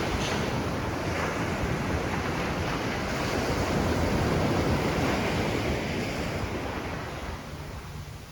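Ocean waves breaking and washing up the shore, a steady rushing surf that swells in the middle and eases off near the end, with wind buffeting the microphone.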